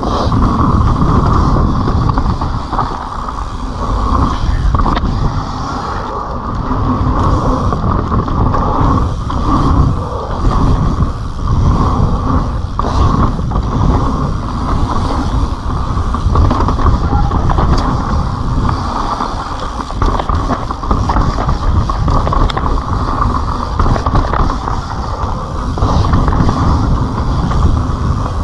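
Kona Process 134 mountain bike descending a dirt singletrack: a steady rush of air and tyre noise, dull and muffled, broken by many small knocks and rattles as the bike runs over roots and bumps.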